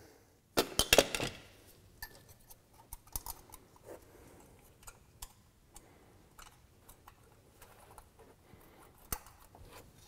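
Metal hand tools clicking and tapping on the rocker arm adjuster lock nut of a Honda 3.5-litre V6's valve train while the lock nut is tightened after a valve lash adjustment. A quick run of sharp clicks comes about a second in, then scattered faint ticks, and one sharp click near the end.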